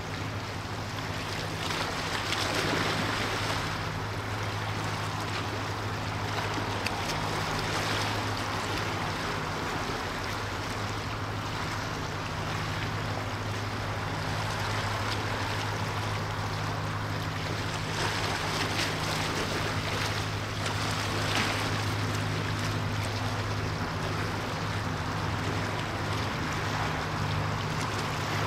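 Steady low drone of a ship's engines under a continuous rush of water and wind.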